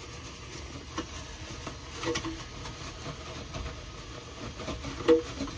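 Plastic knocks and clicks as an activated-carbon filter is pushed and fitted into its slot inside a 3D printer's enclosure: a few light knocks, then a sharper, louder knock about five seconds in, over a low steady hum.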